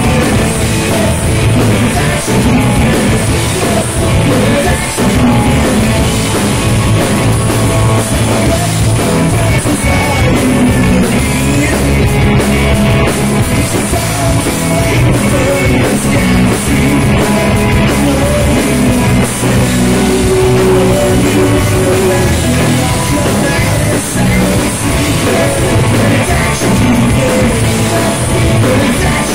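Live rock band playing loud: two electric guitars, electric bass and drum kit, with a lead singer over them.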